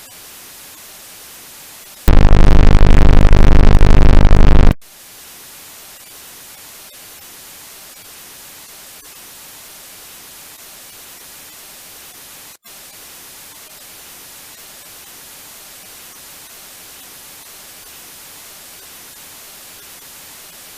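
Steady static hiss of a homemade mock emergency-alert soundtrack, broken about two seconds in by a very loud, harsh buzzing tone lasting under three seconds, then static again with a brief dropout near the middle.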